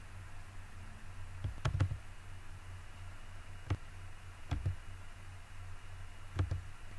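A few sharp computer mouse clicks spaced out over a steady low hum, two of them close together a little under two seconds in.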